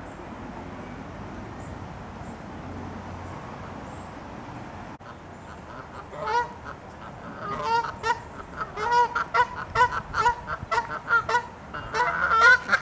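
Canada geese honking: after a steady background rush, a first honk comes about six seconds in, then many more, quickly overlapping as several birds call at once.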